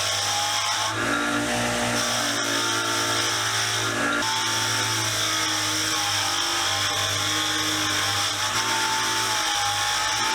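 Powered wire wheel running steadily against a small metal benchtop vise to clean it, a constant motor hum under a bright wire-brushing hiss, the motor's tone wavering slightly as the part is pressed into the wheel.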